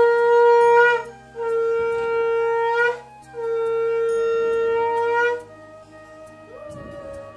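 Conch shell (shankha) blown in three long, steady blasts as part of a Hindu puja offering, the first ending about a second in and the last ending about five seconds in. A much fainter wavering, sliding note follows near the end.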